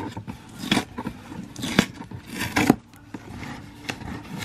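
A cardboard shipping box being opened by hand: an irregular run of rips, scrapes and crinkles.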